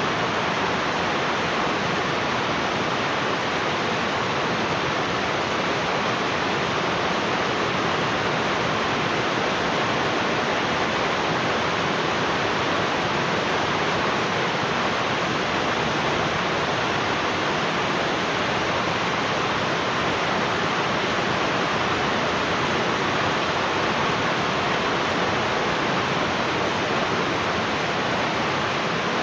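Heavy rain falling: a steady, even hiss that holds the same level throughout, with no single drops or thunder standing out.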